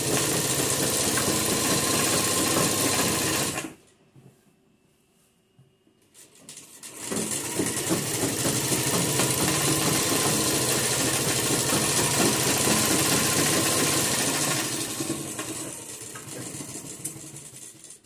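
Industrial lockstitch sewing machine running as fabric is stitched. It stops for about three seconds a little under four seconds in, then starts again and runs on, growing quieter over the last few seconds.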